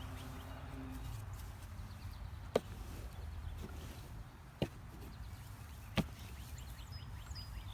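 Three short, sharp knocks about one and a half to two seconds apart, over a low steady rumble: harvested potatoes being tossed into a container while sorting through a grow bag's soil.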